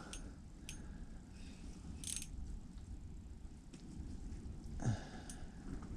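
Faint handling noise of an ice-fishing rod and line: a few light clicks and taps over a low rumble, with one short rising sound near the end.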